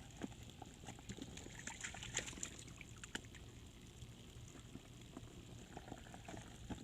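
Faint water sounds, light splashing and trickling with scattered small ticks, as puppies move about in a shallow pond.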